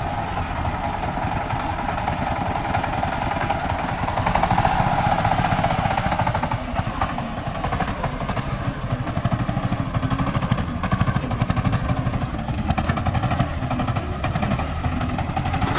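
Single-cylinder diesel engine of a công nông three-wheeled farm truck, running under load while it carries a full bed of sand. It makes a rapid, even chugging beat, a little louder about four to six seconds in.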